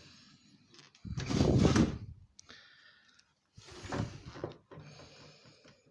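Handling noises from a flat-screen TV being taken apart: two bouts of scraping and knocking, about a second in and again near four seconds, with fainter rustling between.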